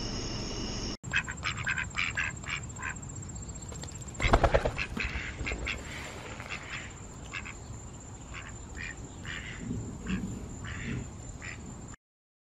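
Insects trilling for about a second, then a mallard duck quacking: a run of short calls with one louder burst of quacks about four seconds in. The sound stops abruptly near the end.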